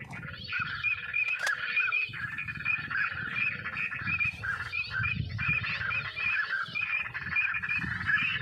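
Many birds calling at once, a dense stream of short calls repeating several times a second, over a low uneven rumble.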